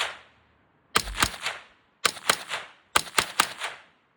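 Unsuppressed Smith & Wesson M&P 15-22 .22 rimfire rifle firing 21-grain copper rounds at a steady pace, about one shot a second, three shots. Each shot is a sharp crack followed by a quick rattle of two or three fainter cracks.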